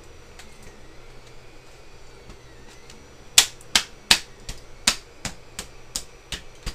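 Hand striking a hollow 3D-printed plastic shell. About ten sharp knocks come at close to three a second from about halfway through, the first the loudest, as a printed teeth piece is tapped into its seat.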